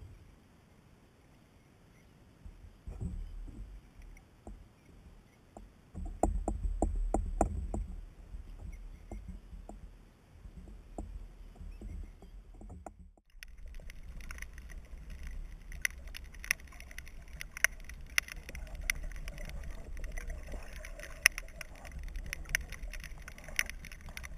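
Water sloshing and splashing as a mulloway is held in the shallows and worked back and forth before release. About halfway through, the sound changes abruptly to the muffled rush of an underwater camera microphone, with frequent sharp clicks and crackle.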